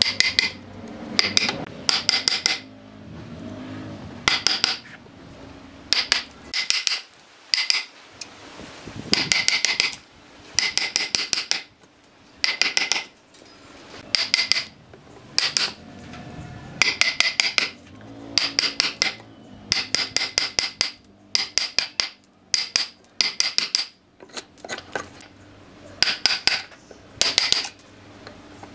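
Hammer striking a steel chisel driven into a wooden stump: quick runs of sharp, ringing metallic blows, four to six at a time, repeating every second or two as the chisel chops cross-grain cuts into the wood.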